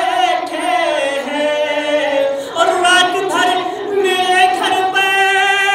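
A man's voice reciting a devotional poem in a melodic, sung chant into a microphone, gliding between pitches and holding a long steady note near the end.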